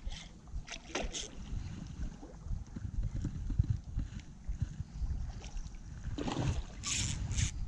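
Wind buffeting the microphone with a low rumble, over light rustling and handling of a fishing rod and gloves. Near the end come a few short, sharp rustling bursts.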